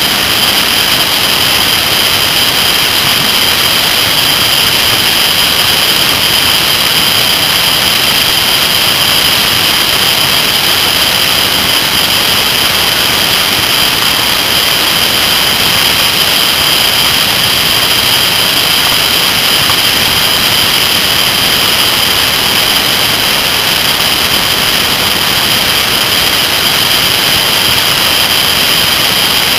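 Steady, loud rushing wind and road noise over a camera mounted low on a Kawasaki ZR-7S motorcycle riding at road speed, with a few steady high-pitched whistling tones on top and the engine note buried in the rush.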